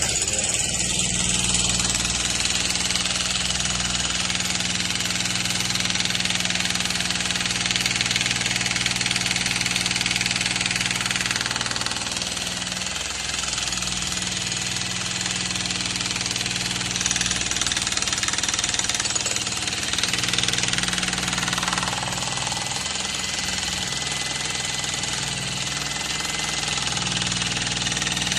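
Jackhammer hammering steadily without pause, a dense rapid rattle over a low hum.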